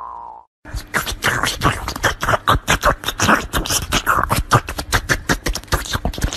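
The tail of a falling 'boing' sound effect fades out in the first half second. Then, from about a second in, a cat licks an ice pop close to the microphone: a rapid run of wet smacking and clicking, several licks a second.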